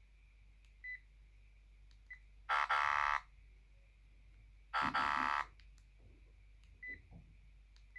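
Sharp GX12 mobile phone's loudspeaker playing a short sound-effect ringtone twice, each burst under a second and about two seconds apart, with faint short beeps in between.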